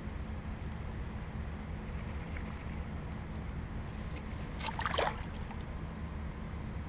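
Steady low outdoor rumble of a stream-side setting, with a brief burst of crackling rustle a little under five seconds in.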